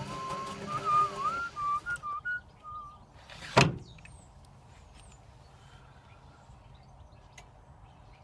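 Servis Sapphire 6055 washing machine running with a steady hum while a wavering whistled tune plays over it. The machine noise stops about two seconds in, a single loud thunk follows about a second and a half later, and a few faint high chirps come after.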